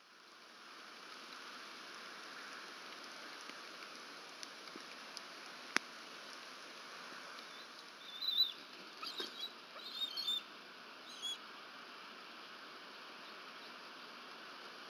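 Steady rain hiss on the nest camera's microphone, with a single sharp click about six seconds in and a few short, high bird calls between about eight and eleven seconds in.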